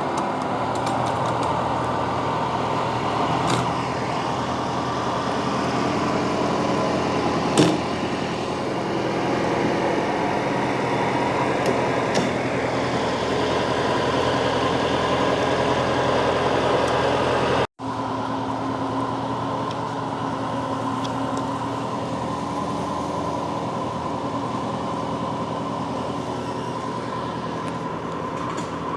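Tractor engine running steadily under load, with a few sharp knocks and clanks, one loudest about eight seconds in. The sound cuts out for an instant about two-thirds of the way through, then the engine carries on.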